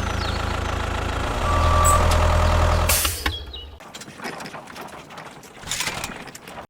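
A motor runs with a steady low drone. It gets louder about a second and a half in and fades out a little before four seconds. Faint clatter follows, with a short louder burst near the end.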